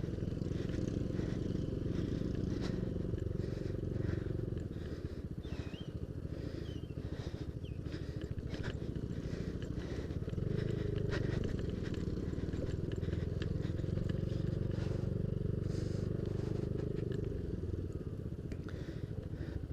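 Yamaha Aerox scooter engine running while riding over a rough dirt track, with scattered rattles and knocks from the bumpy ground. The engine eases off about four seconds in and picks up again around ten seconds.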